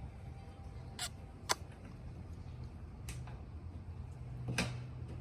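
Four sharp, short crunches of something dry, spread over about five seconds, over a low steady hum.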